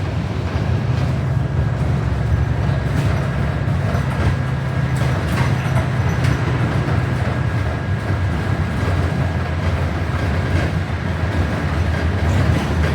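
Interior of a New Flyer XD40 diesel city bus under way: a steady low engine and road rumble with a faint, steady high whine over it.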